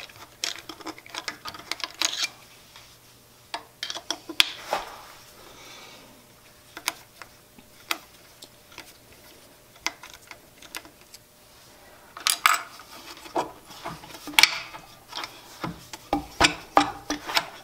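Scattered small metallic clicks and ticks of a hex key working the set screws on the pulley of a Jet JWL-1642EVS lathe's spindle, loosening them, with a few louder clinks near the end.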